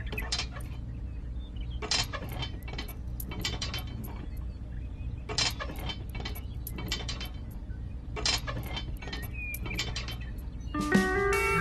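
Irregular mechanical clicking and ticking over a steady low hum. Slide-guitar music comes in near the end.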